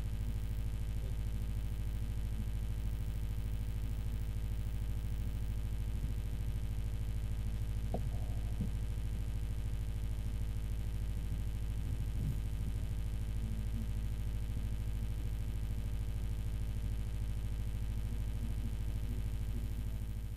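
Steady electrical hum with a buzzing row of even overtones, unchanging throughout, as from a sound system's mains hum; a couple of faint knocks near the middle.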